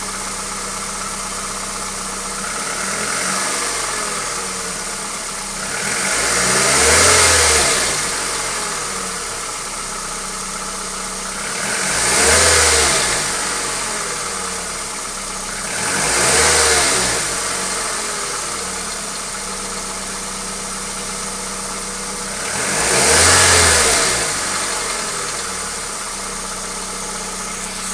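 Hyundai Accent petrol engine idling, revved up and let back down four times, with a smaller rise about three seconds in. The engine has a knock that the owner is trying to track down.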